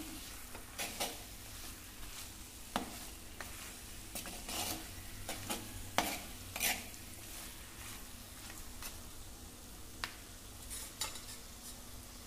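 Steel spoon stirring mutton and thick masala in a clay pot, scraping and knocking against the pot at irregular moments, over a faint steady sizzle of the masala frying.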